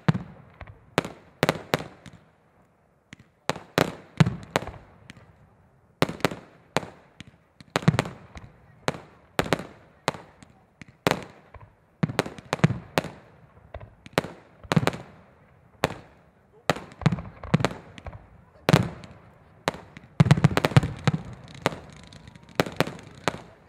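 Fireworks display: shells and fireworks going off one after another in sharp bangs, about one or two a second, each with a short echoing tail. About twenty seconds in, a quick flurry of reports comes close together.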